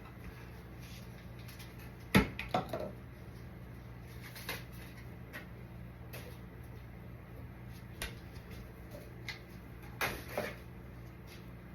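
Scattered knocks and clatters of Christmas decorations being handled: a sharp knock about two seconds in followed by a few lighter ones, and another pair near the end, over a steady low hum.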